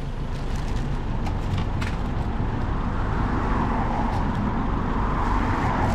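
Road traffic noise: a steady low rumble, with a passing vehicle building up louder from about halfway through and peaking near the end.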